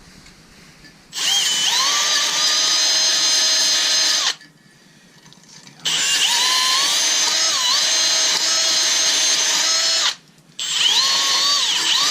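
Power drill running in three bursts with short pauses between: a motor whine that rises in pitch as each burst starts, then holds with brief dips. The drill is working at screws on a Riello oil burner.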